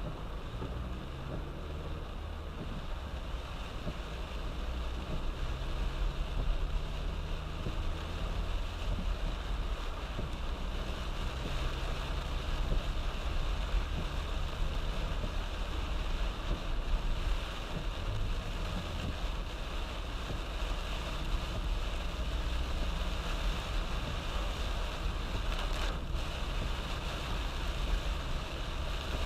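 Heavy rain on a moving car, with tyres hissing on the wet road over a low, steady rumble of the car running.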